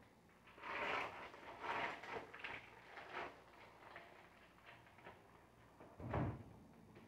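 Clear plastic packaging bag rustling as a rack of raw pork ribs is handled and pulled out of it, loudest in the first three seconds, then a dull thud about six seconds in as the rack drops into a plastic tub.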